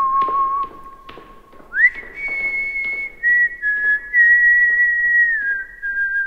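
A person whistling a slow tune of long held notes. The tune slides up about two seconds in, then steps down, with a few faint taps in the first second.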